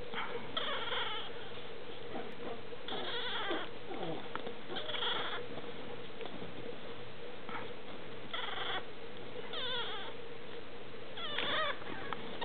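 A three-and-a-half-week-old black teacup poodle puppy gives short, high-pitched squeaking cries, about seven of them, each lasting under a second, with pauses between.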